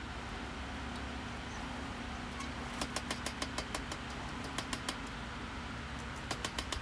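A power hammer drawing down the bevels of a red-hot chef's knife blade. A steady machine hum runs throughout. About three seconds in, the ram starts striking the steel in quick runs of about five or six blows a second, with a short pause, then another fast run near the end.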